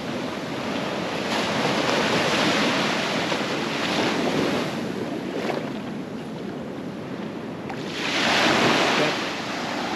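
Ocean surf breaking and washing up a sandy beach in repeated surges, with a louder wave rushing in near the end.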